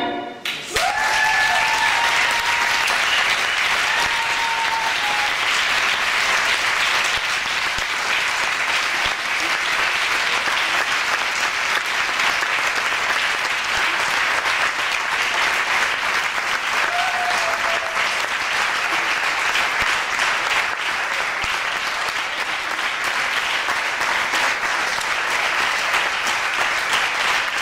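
Audience applause: dense, steady clapping from a full room. A few brief voices call out over it in the first few seconds and once more later on.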